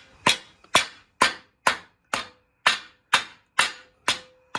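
Hammer striking a metal part in steady, even blows, about two a second, with a faint metallic ring between strikes. It is driving a tight-fitting stabilizer-frame piece into place.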